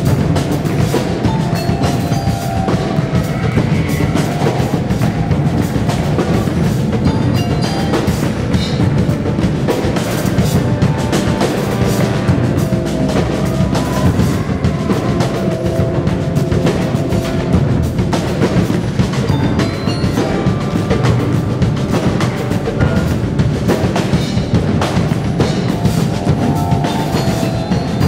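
Live contemporary ensemble music: a drum kit plays steadily and densely alongside marimbas, under held notes from flute, clarinet, brass and cello.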